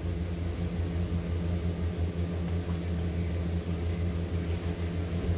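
A steady low hum, like a fan or air conditioner running in the room.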